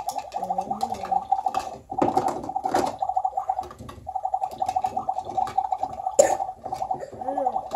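Step2 toy kitchen's electronic burner playing its bubbling cooking sound effect: a rapidly pulsing buzzy tone that cuts out briefly twice, about two and four seconds in. Light clicks and knocks of plastic pots and lids being handled on the stovetop run alongside it.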